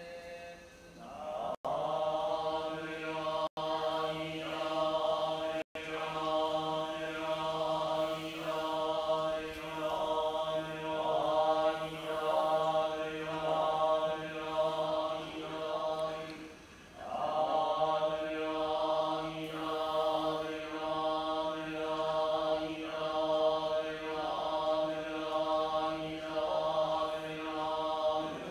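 Japanese Buddhist monks chanting together on a steady pitch, the syllables pulsing about once a second, with a pause for breath about two-thirds of the way through. The sound drops out for a split second three times in the first few seconds.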